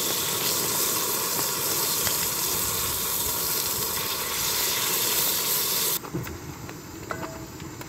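Scallops sizzling as they sear in a hot frying pan over a portable gas-canister stove, with a few light clicks of the spatula turning them. About six seconds in, the sizzle drops suddenly to a quieter, duller sound.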